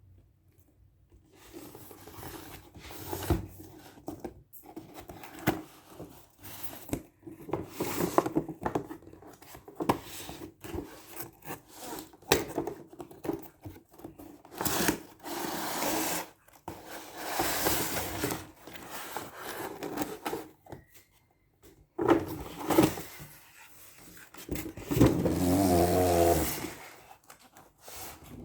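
Box and packaging being handled and opened: irregular rubbing and scraping with scattered knocks and clicks, and a brief squeaky, wavering tone near the end.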